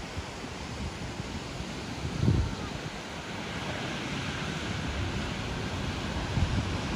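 Ocean surf breaking and washing up the beach, a steady hiss that swells in the second half, with wind buffeting the microphone in low gusts, the strongest about two seconds in.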